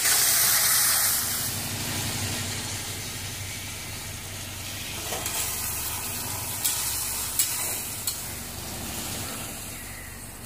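Masala with tomato sizzling in hot oil in a steel kadai while a spatula stirs it, loudest at the start. A few sharp knocks of the spatula against the pan come about two thirds of the way through.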